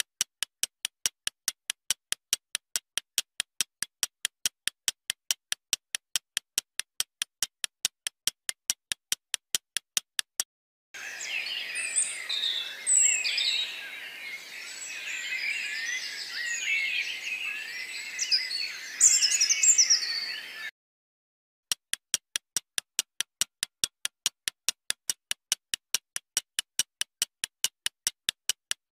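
Countdown timer ticking at a fast, even rate, stopping about ten seconds in. It gives way to roughly ten seconds of a chirping, bird-like sound effect, and then the ticking starts again near the end.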